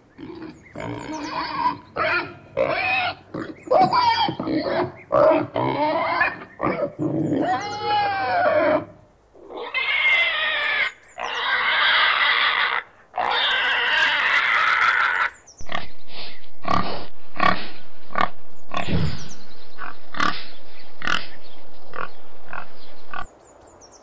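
Domestic pig grunting in short calls, breaking into several seconds of loud squealing about ten seconds in, then back to short grunts.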